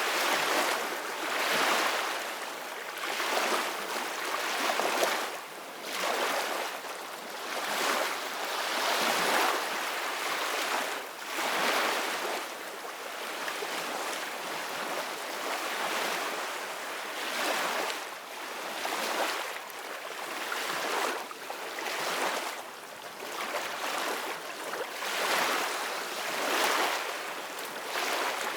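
Sea waves splashing and washing in repeated surges, about one every second or two, over a steady hiss of moving water.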